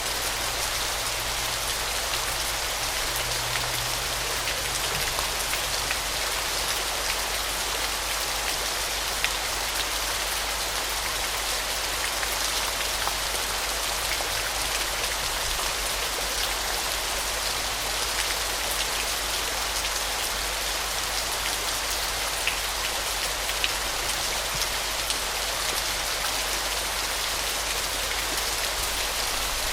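Waterfall: water falling and splashing steadily, a dense hiss with fine droplet patter through it.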